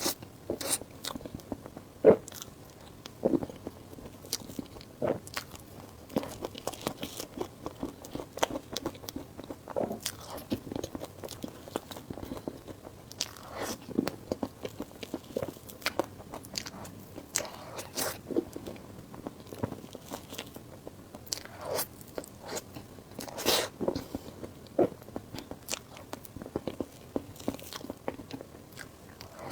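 Close-miked eating: a person biting and chewing food, with irregular crunchy, clicky bites and mouth sounds throughout.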